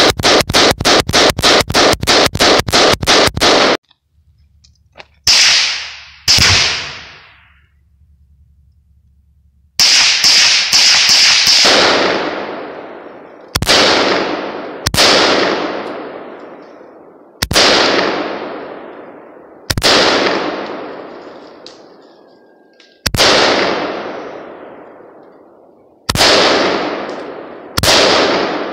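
An AR-15-style rifle fired in a fast string of shots for about four seconds, then, after a short gap, an AK-pattern rifle fired mostly as spaced single shots with one quick cluster of several shots about ten seconds in. Each shot is a sharp crack followed by a long echo dying away.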